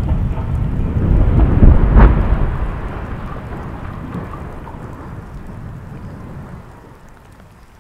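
Deep rumble of a concrete motorway viaduct collapsing after its demolition blast, crashing down onto the valley slope. A sharp crack comes about two seconds in at the loudest point, then the rumble dies away over several seconds.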